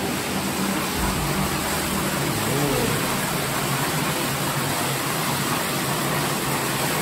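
Waterfall inside a limestone cave: water falling down the rock wall with a steady rushing noise.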